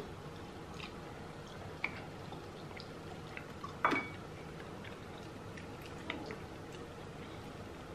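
Quiet eating sounds of people eating spicy goat head with their hands: scattered soft mouth clicks and chewing, and fingers picking through the wet food. One louder wet click comes about four seconds in.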